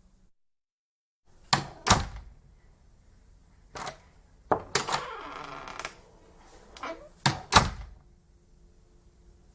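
A large wooden courtroom door being worked: sharp latch-and-wood knocks in pairs, and a drawn-out creak of the hinges for about a second as it swings, midway through. Two more heavy thuds follow near the end as it shuts.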